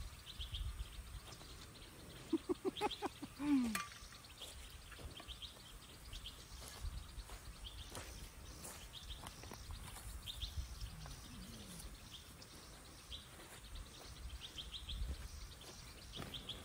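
Birds calling in short, quick repeated trills, with a lower run of rapid pulsed notes about two to three seconds in that ends in a falling note. Scattered light clicks and knocks sound now and then.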